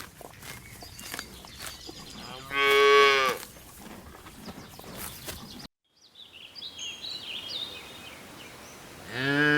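Cattle mooing: one call of about a second near the start, and a second call beginning near the end, with faint bird chirps in between.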